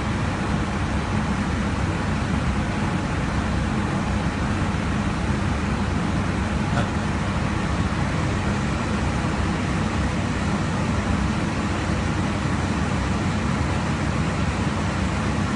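Steady rushing noise of air and engines heard inside an aircraft cockpit in cruise flight, with a faint low hum under it.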